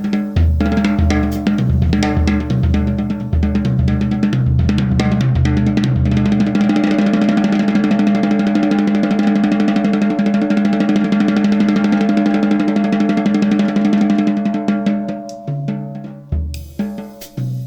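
Solo percussion on a drum kit: steady bass drum beats with snare for the first several seconds, then a fast continuous snare roll over a held low ringing tone, thinning out near the end before the bass drum beats return.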